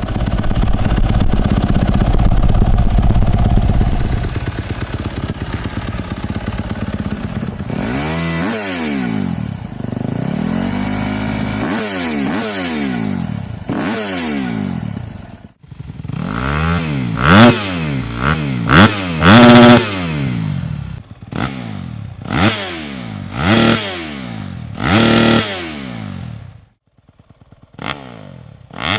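250cc four-stroke single-cylinder motocross bike with an aftermarket exhaust. It runs steadily for a few seconds, then is revved up and down repeatedly. After a sudden break it gives a string of quick, sharp throttle blips.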